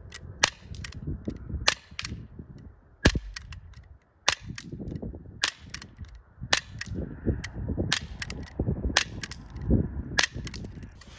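Umarex Glock 19X CO2 blowback airsoft pistol firing about ten single shots, a sharp report roughly every second.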